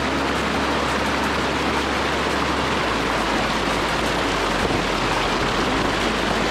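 Fast, shallow river rapids rushing over rocks, a loud steady wash of water.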